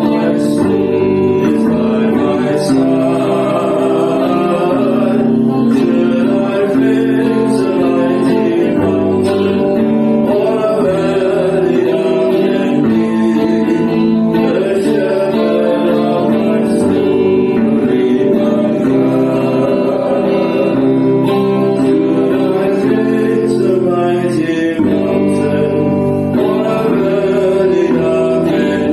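Worship song: singing with guitar accompaniment.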